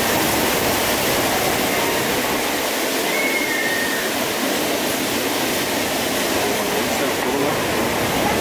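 Steady roar of breaking ocean surf: an even wash of noise with no pauses or distinct strikes.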